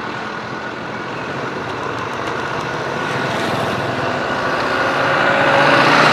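Motorcycle-sidecar tricycle approaching, its small engine running and growing steadily louder as it comes close, over the hum of passing road traffic.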